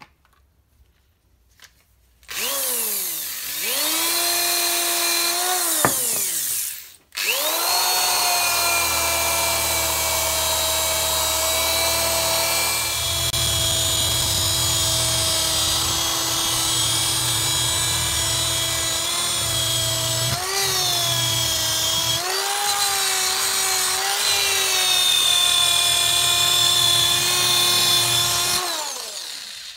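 Electric drill spinning a sisal polishing wheel against a rifle barrel in the final polishing stage. It starts about two seconds in, stops briefly and restarts, then runs steadily with the hiss of the wheel rubbing the steel, dipping in pitch twice under load before winding down near the end.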